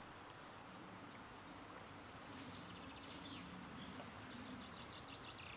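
Quiet lakeside outdoor ambience: a steady soft hiss, with a faint, rapid, high chirping trill from about halfway through and a couple of light rustles.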